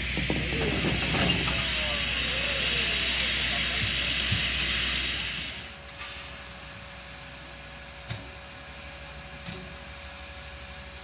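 Victorian Railways K-class steam locomotive K 163 standing and hissing steam loudly and steadily. About five and a half seconds in, the hiss drops away sharply, leaving a much quieter background with a few faint knocks.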